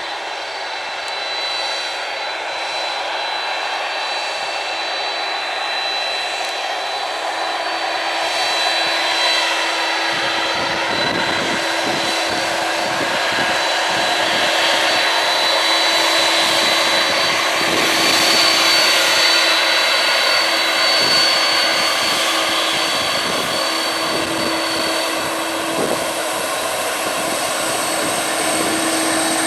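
Jet airliner engines running with a steady high whine over a broad roar, growing louder toward the middle as the aircraft passes. From about a third of the way in, wind buffets the microphone.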